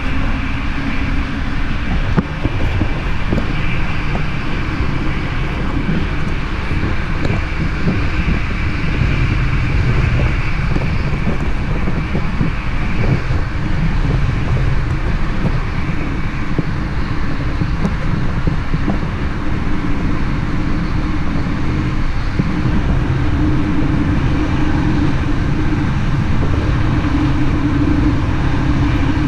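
SBB Interregio passenger train running at speed, heard from inside the carriage: a steady rumble of wheels on rail with a constant low hum and a higher whine over it, and a single brief knock about two seconds in.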